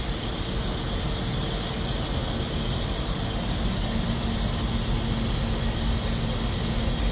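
Steady mechanical rush and hum of running distillery equipment. A faint steady tone fades out about three seconds in, and a lower steady hum comes in a little after two seconds.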